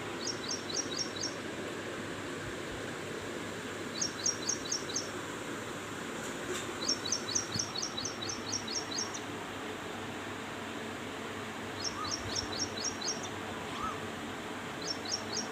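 A bird calling in bouts of rapid, high-pitched chirps, about seven notes a second, each bout lasting one to two seconds and repeating every few seconds over steady outdoor background noise. A few faint, short rising calls come in lower down near the end.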